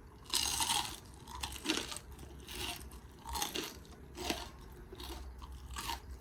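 Crunching as crispy fried potato strings are bitten and chewed: a run of separate crunches, the first and loudest about a third of a second in, then more every half second to a second.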